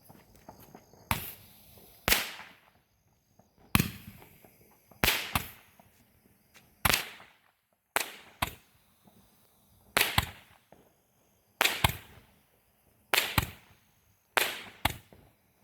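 A Roman candle firework firing a steady series of sharp pops, about ten shots roughly a second and a half apart, many of them a quick double bang.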